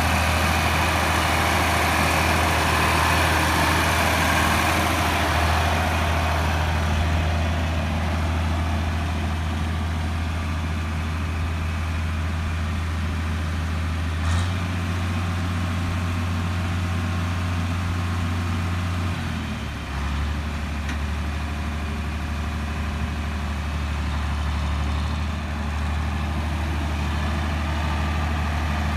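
John Deere 4010's six-cylinder diesel engine running steadily at idle. About 14 seconds in its note steps up with a click, and about 20 seconds in it settles back down. A broad hiss fades out over the first several seconds.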